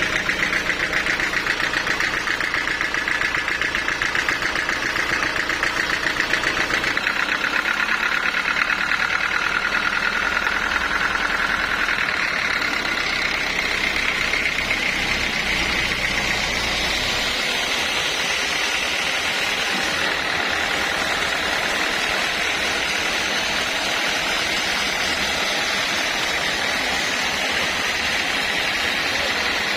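Sawmill machinery running steadily, an engine-driven saw, with its tone shifting about 7 and 12 seconds in and the low rumble easing after about 17 seconds.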